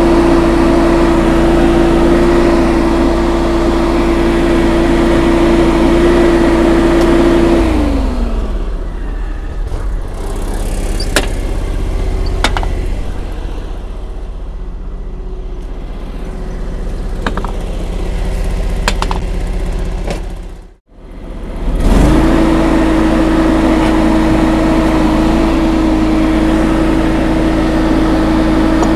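John Deere X739 garden tractor running with its mower deck engaged, a steady whine over the engine. About eight seconds in the whine glides down and the tractor runs on more quietly with a few clicks. After a short break the whine comes straight back up and holds steady.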